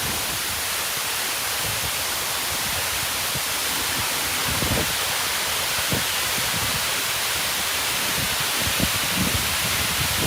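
Steady hiss of the Água d'Alto waterfall's falling water, with a few brief low rumbles through it.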